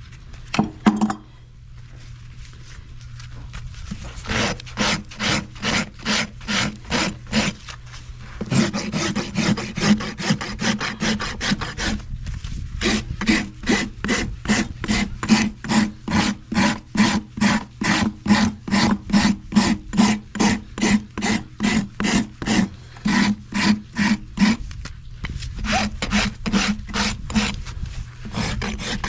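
Farrier's hoof rasp filing the sole and wall of a horse's hoof in steady back-and-forth strokes, about two a second, with a couple of short pauses. A couple of sharp knocks about a second in, before the rasping starts.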